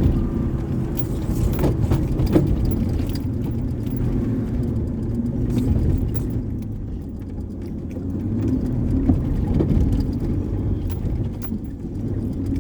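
Pickup truck driving off-road through soft sand, heard from inside the cab: a steady low engine and tyre rumble with frequent clicks and rattles of loose gear.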